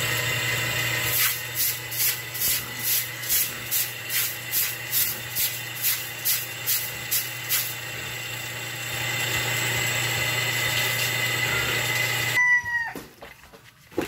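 A small electric motor runs with a steady hum and whine, then switches off about twelve seconds in, its pitch falling as it spins down. Over it, in the first half, come about fifteen rhythmic scraping strokes, two a second, of a tool on a wet concrete floor.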